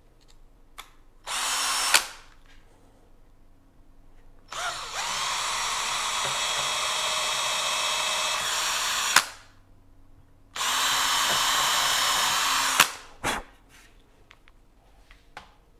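Cordless drill driving a small bit into the wood of a guitar body to make a pilot hole for a bridge screw. The drill runs in three bursts, a short one, a long one of several seconds and a shorter one near the end, each stopping abruptly with a click.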